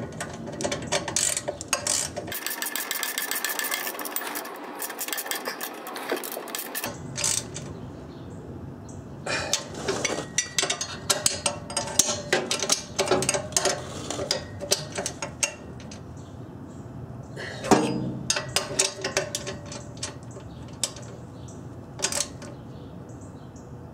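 Socket ratchet clicking in quick runs, with pauses between, as the spring bolts on the exhaust flange between the B-pipe and front pipe are tightened.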